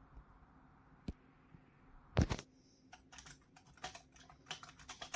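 Keys of a RedThunder K900 semi-mechanical keyboard being typed on: a single click about a second in, a louder double clack a second later, then a quick irregular run of keystrokes.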